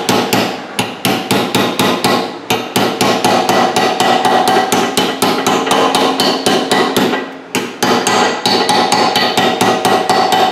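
Hand hammer striking a steel punch held against a steering knuckle, tapping a part down in a rapid run of several blows a second, each with a metallic ring. The blows break off briefly about seven seconds in, then go on.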